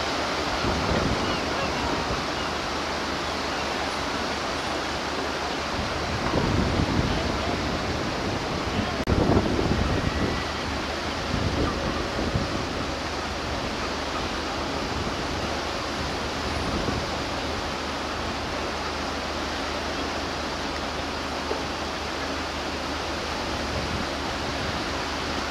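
Steady wash of surf and wind on an open beach, with a few louder rushes about six and nine seconds in.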